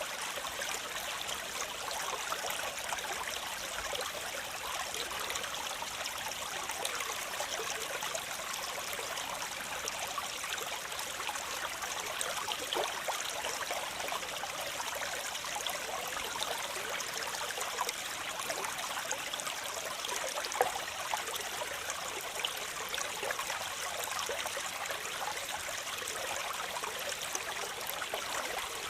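Waterfall water rushing and splashing in a steady hiss, mostly light and high with little low rumble, dotted with small splashes and one sharper splash about two-thirds of the way through.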